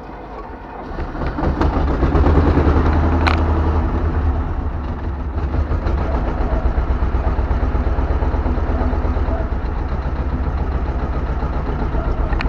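T-25 Vladimirets tractor's two-cylinder air-cooled D-21 diesel catching about a second in, running up briefly, then settling to a steady pulsing idle. A single sharp click sounds a little over three seconds in.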